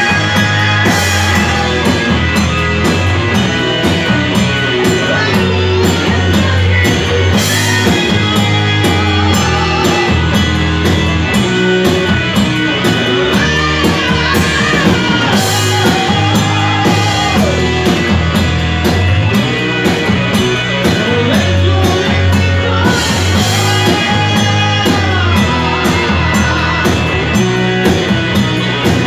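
Live rock band playing: electric guitar, electric bass and drum kit keep a steady beat, with a melody line that holds and bends notes over the top.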